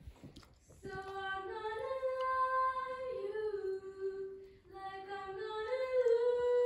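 A woman humming a wordless tune in two phrases, moving in steps between held notes, the second phrase starting a little past halfway.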